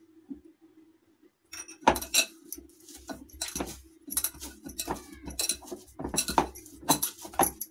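Dough being kneaded by hand in a glass bowl, with bangles on the kneading wrist jingling and knocking against the bowl: a quick, irregular run of clinks and soft slaps that starts about two seconds in.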